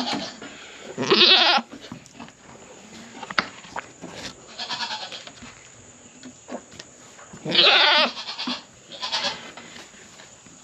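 Hungry dairy goats bleating for their feed: a loud wavering call about a second in, two more near the end, and fainter calls between.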